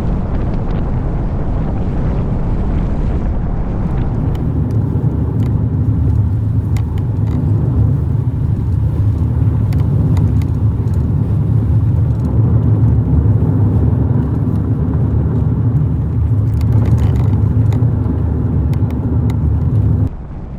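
A Honda Ridgeline pickup driving, with a steady low rumble of road and engine noise and scattered faint clicks. The rumble grows heavier about four seconds in and drops off suddenly near the end.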